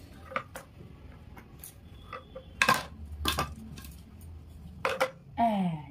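Hard plastic pieces of a toddler's ring-stacking toy knocking and clattering against a wooden table and the floor: several separate sharp knocks, the loudest about two and a half seconds in. A short falling vocal sound comes near the end.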